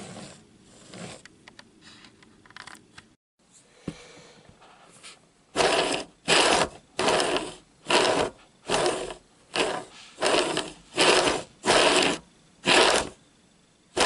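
Hornby Dublo N2 tank engine chassis shoved back and forth by hand along model railway track. It makes about eleven even strokes of rolling, scraping wheel-and-rail noise, roughly one every 0.6 s. This is a free-running test, and the chassis shows no rough spots. Faint handling and rubbing noises come before the strokes start, about halfway in.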